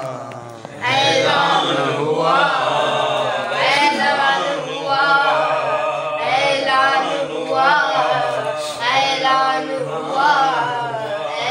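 Group of men's voices chanting a devotional Urdu kalam refrain together, unaccompanied, starting about a second in.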